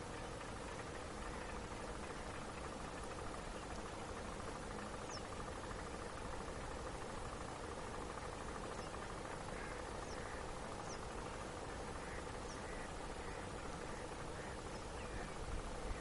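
Bar-headed geese calling faintly over a steady background hiss. A few short calls come in the second half.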